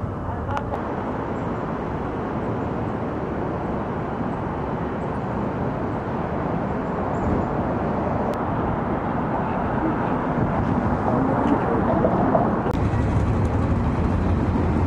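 Outdoor city ambience: a steady hum of traffic and street noise, turning to louder, closer street traffic near the end.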